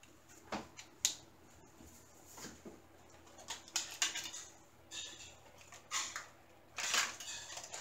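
Faint handling sounds: a handful of scattered light clicks and short rustles, spaced irregularly, as a large picture frame and craft items are moved on a table.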